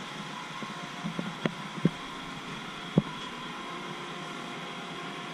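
Steady machinery hum inside a ship's engine control room, with faint constant whine tones over it. A few short sharp knocks between about one and three seconds in.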